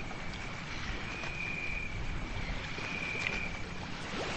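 Outdoor night ambience with a high, steady trilling call that comes and goes in stretches of about a second, over a low, even rumble.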